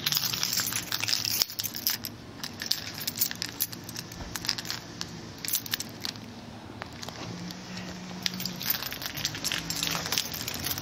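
Keys and a remote fob clicking and rattling in hand, with rustling handling noise over a faint steady low hum.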